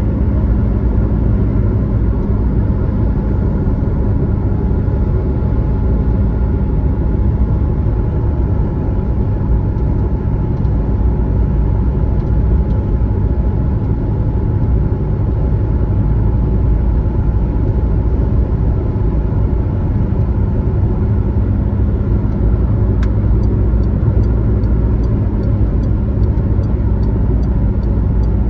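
A car driving at highway speed: a steady, heavy rumble of engine and tyre noise. About three quarters of the way through, a faint, regular ticking starts, about two ticks a second.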